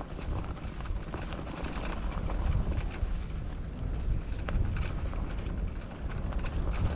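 Fat tyres of an electric bike rolling over a dirt trail thick with dry fallen leaves, with crunching and scattered rattling knocks as it bounces over bumps. Wind rumbles on the microphone throughout.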